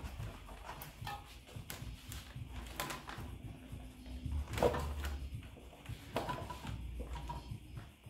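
Quiet background music under workshop handling sounds as a mountain-bike tyre is worked onto its rim by hand and with a tyre lever: scattered knocks and clicks and rustling of rubber and a plastic bag.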